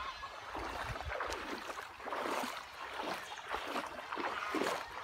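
Water sloshing and splashing around legs wading through a shallow, stony river, coming in uneven surges with the strides.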